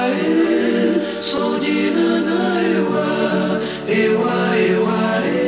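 Music with several singing voices in harmony.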